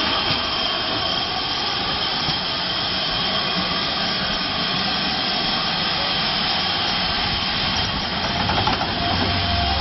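A steam train's passenger coaches rolling past close by as the train runs into a station, a steady loud rushing noise with a thin high ring over it. A deeper rumble comes in near the end.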